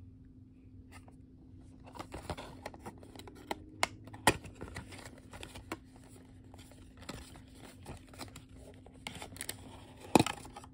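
A paperboard cosmetics carton being opened by hand: rustling and scraping of the card as the flap is worked open, with several sharp clicks, and a loud snap near the end as the jar comes out of the box.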